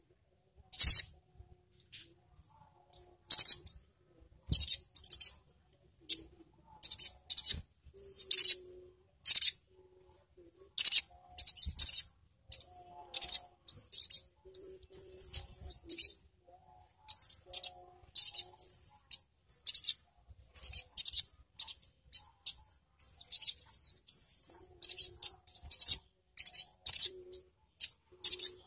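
Male olive-backed sunbird (sogon) singing: short, sharp, very high chirps about once a second, broken twice by faster twittering runs.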